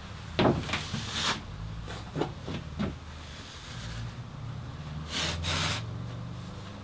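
Polyester loft insulation being torn apart by hand: fluffy fibre rustling and ripping in short bursts, with a longer rip about five seconds in. A low steady hum runs underneath.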